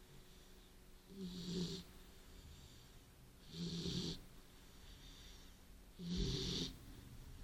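Beagle snoring in its sleep: three snores about two and a half seconds apart, each lasting under a second.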